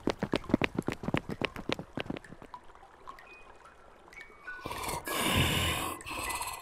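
A fast patter of water drips or small splashes, fading out after about two seconds. Then, about five seconds in, a loud rough, breathy rasp with a low rumble beneath it.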